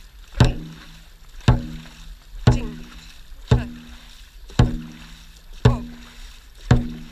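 Dragon boat drum struck at a steady pace of about one beat a second, each hit ringing briefly with a low tone, setting the crew's stroke rate. A faint rush of water along the hull lies beneath.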